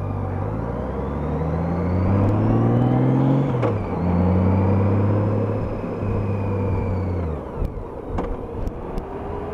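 Honda F6B's flat-six engine pulling up through the revs, with a shift about three and a half seconds in and a second pull, then the throttle rolled off about two seconds before the end, over wind noise on the helmet microphone.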